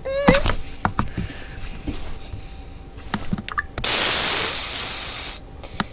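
A few faint taps, then nearly four seconds in a loud hiss lasting about a second and a half that cuts off suddenly.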